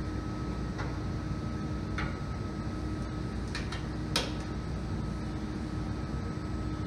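Light metal clicks and knocks from a 2014 Toyota Corolla's hood prop rod being unhooked and snapped into its clip, the sharpest about four seconds in, as the hood is lowered. A steady hum runs underneath.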